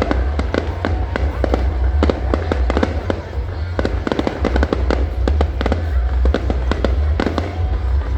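Fireworks display: many shells bursting in rapid, continuous bangs and crackling, over a heavy low rumble.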